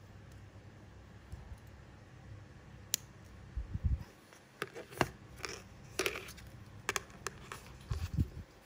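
Diagonal side cutters snipping the tag end of fishing line at a hook knot, a single sharp click about three seconds in, followed by a run of small clicks and taps from handling the cutters and hooks, with a couple of dull bumps.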